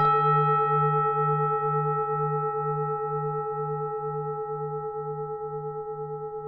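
Vietnamese temple bell struck once, then ringing with a long, slowly fading hum of several steady tones, the lowest one pulsing about twice a second.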